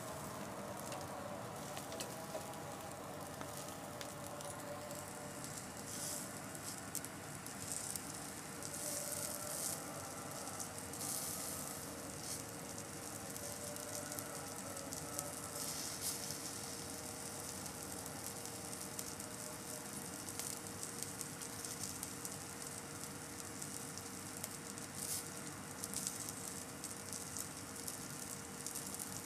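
Barbecue meat sizzling on a grill: a steady sizzle with scattered small crackles and pops.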